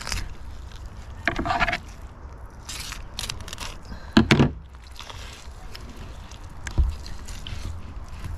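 Knife scrapes and knocks while a salmon is being cut up, with a few louder knocks and a low steady hum underneath.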